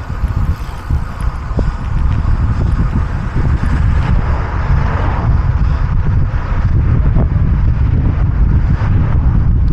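Wind buffeting the microphone: a loud, gusty low rumble that gets a little louder about two seconds in.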